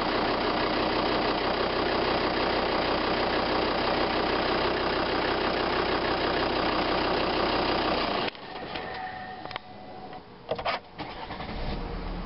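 Volvo S60 D5's five-cylinder turbodiesel idling steadily under the open bonnet. About eight seconds in the sound drops suddenly to a quieter idle heard from inside the cabin, with a few short clicks.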